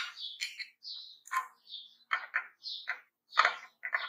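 Knife and fingers on a china plate as fried French toast is cut and moved about: a string of short scrapes and clicks, with high chirp-like sounds between them.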